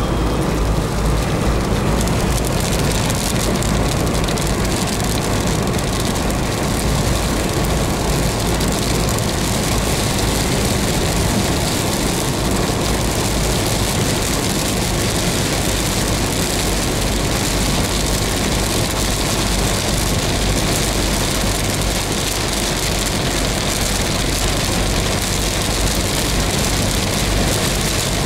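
Car driving at highway speed in rain, heard from inside the cabin: a steady low rumble of engine and tyres on the wet road, with rain hitting the windscreen and roof. The rain hiss grows heavier a couple of seconds in.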